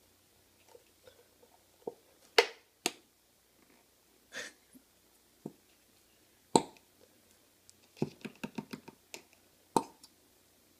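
White glue squeezed from a plastic squeeze bottle into a cup: scattered sharp pops and clicks from the bottle and nozzle, with a quick run of them about eight seconds in.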